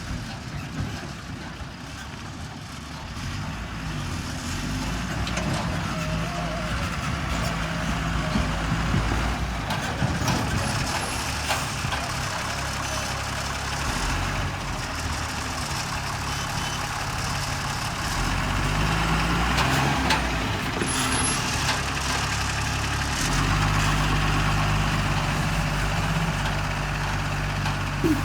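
Diesel engine of a JCB 3DX backhoe loader running under working load while loading soil, its pitch stepping up and down as it revs, louder in the last third.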